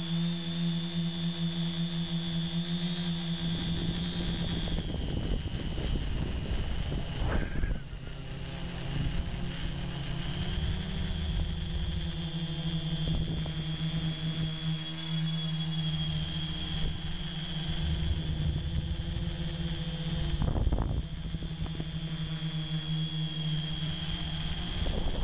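Flitetest Batbones tricopter's three electric motors and propellers heard from the camera mounted on it: a steady buzzing hum with a high whine above it, stepping in pitch as the throttle changes. Wind rushes over the microphone, with brief gusts about 7 and 21 seconds in.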